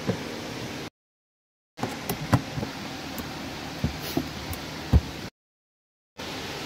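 Several sharp knocks and clunks of hand work on the fuel pump assembly under the rear seat, over a steady background hum. Twice the sound drops briefly to dead silence.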